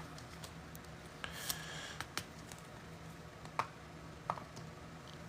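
Quiet handling of trading cards and packs: a few light clicks and brief rustles, scattered irregularly, over a faint steady hum.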